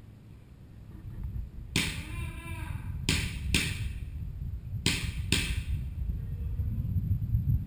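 Airsoft gun firing five single shots, each a sharp snap with a short tail: one about two seconds in, then two close pairs. A low rumble runs beneath.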